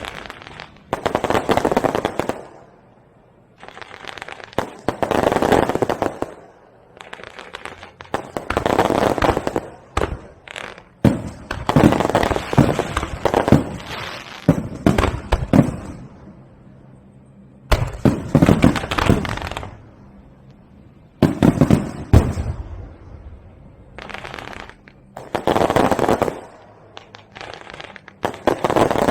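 Aerial fireworks going off in a series of bursts a few seconds apart, each a sharp bang followed by a second or two of dense crackling; the crackling runs on longest about midway.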